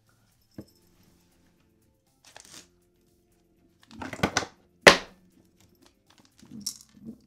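A cat batting a small plastic treat-dispensing toy: a quick clatter of knocks about four seconds in, then one sharp, louder knock, with a few softer taps and rustles around it. Faint background music underneath.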